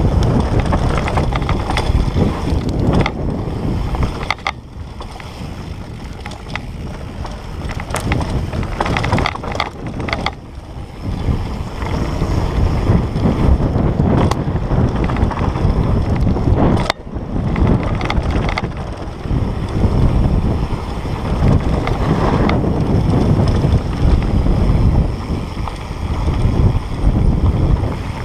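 Wind buffeting the microphone and tyres rolling over a dirt trail as a Specialized Status 160 mountain bike rides downhill at speed, with sharp knocks and rattles from the bike over bumps.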